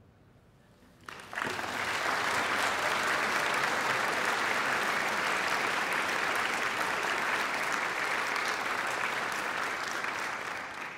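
Concert audience applauding at the end of a performance; the clapping breaks out about a second in and holds steady, easing off near the end.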